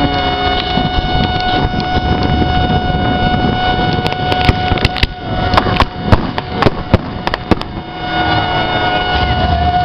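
Engines of several radio-controlled model warplanes flying together in formation, one holding a steady high note while others pass with falling pitch. About halfway through comes a quick run of sharp cracks.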